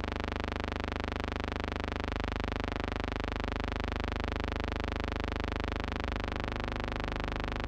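Steady buzzing drone made of many even overtones. Its low end shifts slightly about two seconds in and again near six seconds.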